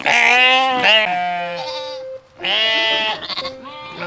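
Sheep bleating twice: a long wavering bleat of about two seconds, then a shorter one.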